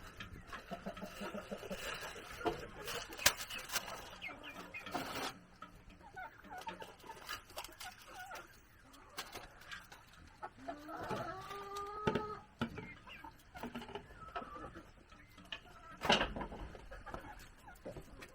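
Chickens clucking, with a short call that bends in pitch about eleven seconds in, among scattered sharp knocks and clicks.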